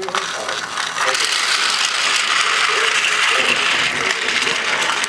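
A battery-powered TOMY toy train running, its motor and plastic gears making a steady, dense clattering whir that gets louder about a second in.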